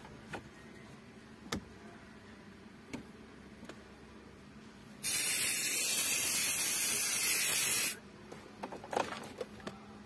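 An aerosol can sprays onto the gear lever in one continuous hiss lasting about three seconds, starting about halfway through. A few light clicks come before it and a short clatter of small knocks follows.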